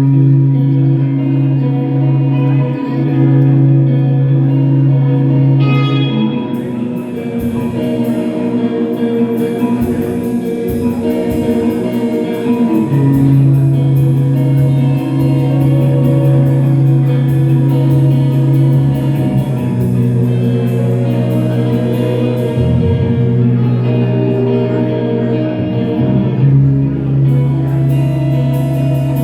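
Live band music led by guitar, opening a song with held chords. About six seconds in, a fast, steady ticking of high percussion comes in.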